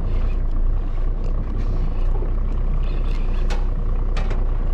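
A boat's engine running steadily with a low hum, with a few short light clicks in the second half.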